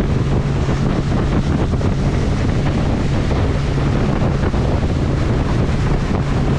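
Boat motor running at a steady pitch while the boat travels, with wind rushing over the microphone throughout.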